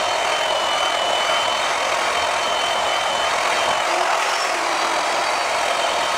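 Electric rotary buffer running steadily, its foam pad rubbing over the plastic sparkle wrap of a drum shell to buff out scratches, with a thin motor whine. About four seconds in the pitch shifts a little as the pad's contact with the shell changes.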